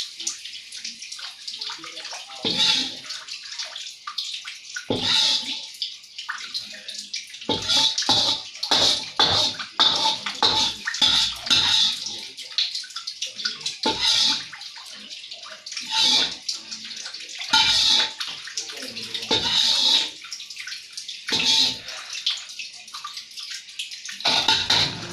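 Noodles stir-frying in a wok: a hissing sizzle that swells and fades every second or two as they are tossed, with frequent short clatters of the spatula against the pan.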